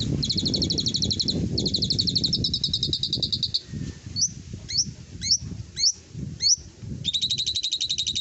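Asian pied starling (jalak suren) calling: two long, fast rattling trills, then five short rising whistles about half a second apart, then another rapid rattling trill near the end.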